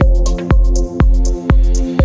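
Electronic background music with a steady beat: a heavy kick drum about twice a second with hi-hat ticks between, over sustained synth notes.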